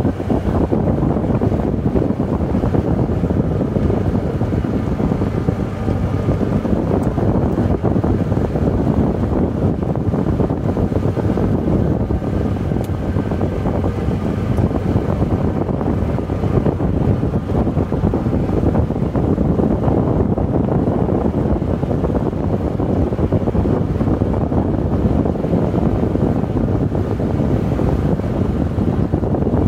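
Golf cart driving along an unpaved dirt road: a steady rumble of its tyres and running gear, with wind buffeting the microphone.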